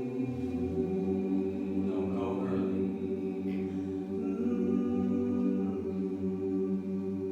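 A chorus singing a cappella in close harmony, holding long chords that change every couple of seconds.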